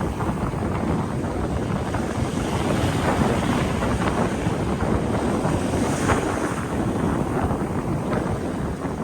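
Strong wind buffeting the microphone in gusts, with sea waves washing onto the shore underneath.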